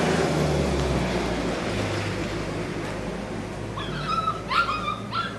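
A dog giving about four short, high yips or whimpers, starting nearly four seconds in, over steady background noise and a low hum.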